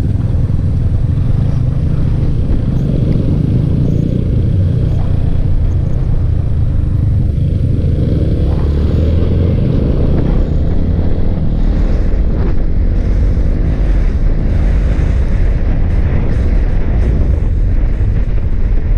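Yamaha Sniper 155 motorcycle riding and speeding up on an open road, its single-cylinder engine under a heavy, steady low wind rumble on the helmet microphone.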